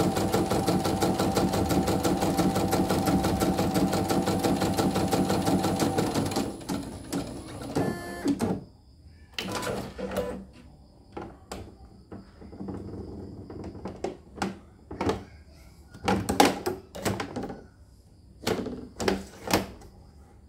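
CNY portable embroidery machine stitching at speed with a fast, even needle rhythm, running smoothly after a presser-foot repair; it stops about six seconds in. After that come a brief rattle and scattered knocks and clatter as the embroidery hoop is handled and taken off the machine.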